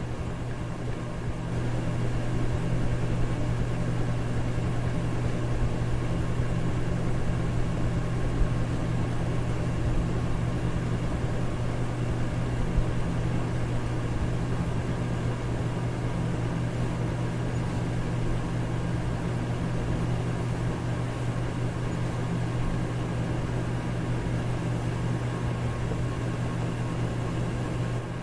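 Electric fan running steadily: a low motor hum with a few steady tones over an even rush of air, a little louder after about a second and a half.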